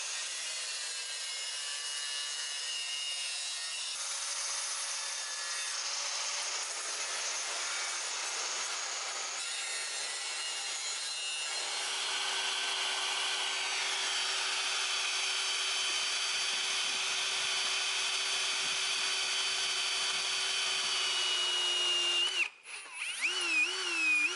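Power tools cutting and drilling metal: an angle grinder cutting steel tube, then a power tool running with a steady whine, and near the end a cordless drill whose pitch rises and falls as it bores into the frame.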